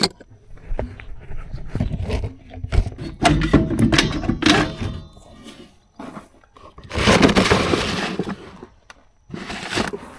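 Metal parts of a trailer wheel hub and its bearings being handled: irregular clanks and knocks, with a longer scraping stretch about seven seconds in and a shorter one near the end.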